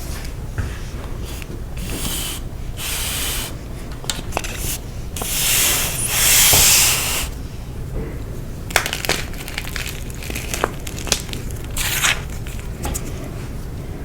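Blocks of dyed gym chalk being crushed and crumbled by hand: a run of crunches with the longest, loudest one a little past halfway, then sharp crackles and snaps.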